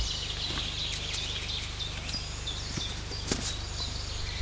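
Birds chirping over a steady low hum, with a couple of faint knocks near the middle.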